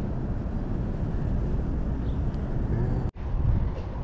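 Steady low rumbling outdoor noise, which drops out for an instant about three seconds in.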